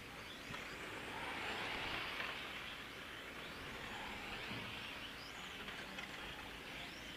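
1/8-scale electric on-road RC cars racing on asphalt: a hiss of tyres and the high whine of the electric motors rising and falling as cars pass, loudest about two seconds in.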